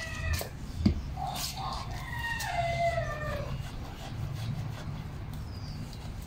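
Dog whining in a few high, falling cries, with a single sharp knock about a second in.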